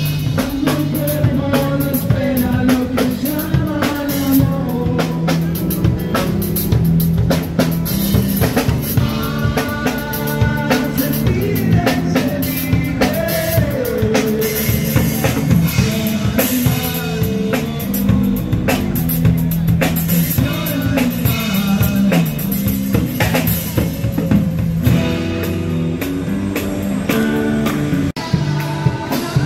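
Band music with a drum kit keeping a steady beat under a melody line.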